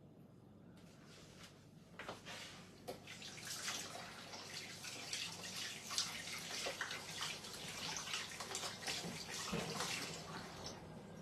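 Tap water running into a stainless-steel kitchen sink while hands are rinsed under it, with splashing. It starts about a second in and gets louder about two seconds in.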